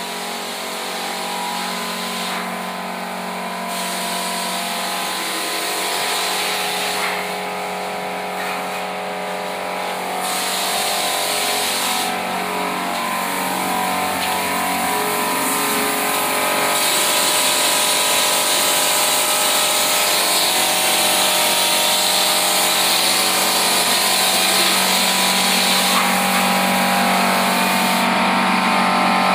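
A machine running steadily with a low hum, joined by a hiss that cuts out and comes back several times.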